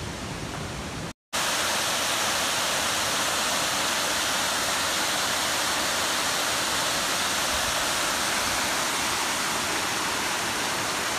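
Steady rushing of a cascading forest waterfall, after a brief silent gap about a second in.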